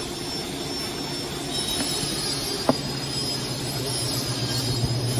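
Steady hum of background machinery, a low drone with a high thin whine over it, and one sharp click about two and a half seconds in.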